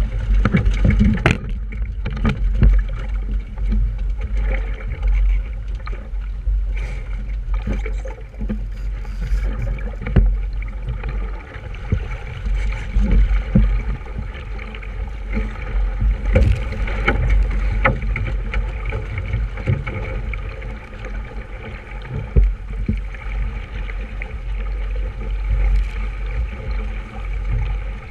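Small sailboat under way: a steady low rumble of wind on the microphone and rushing water noise, with scattered sharp knocks through it.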